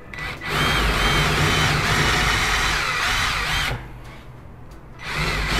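Battery drill-driver fitted with a 10 mm bit, boring a shallow counterbore into MDF so a screw head will sit hidden. The motor runs for about three seconds, stops, then starts again near the end for the next hole.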